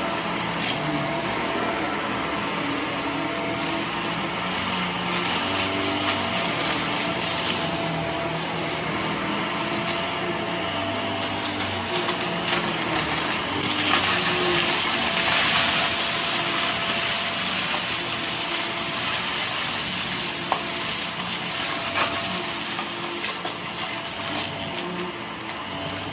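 Vacuum cleaner running steadily, its hiss growing louder for a couple of seconds about halfway through.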